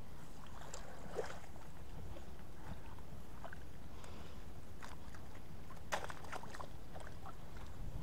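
A wire-mesh fish keepnet full of fish lifted out of shallow water: splashing and dripping, with scattered clicks and rattles of the wire mesh, the sharpest about a second in and about six seconds in, over a steady low rumble.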